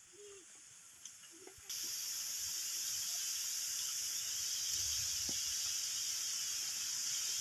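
Insects droning in a steady high hiss, which comes in abruptly a little under two seconds in; before that there is only faint quiet outdoor ambience.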